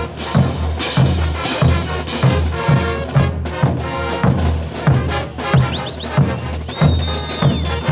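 Bolivian brass band playing a morenada: brass over a steady bass-drum beat. A high held note comes in about six seconds in.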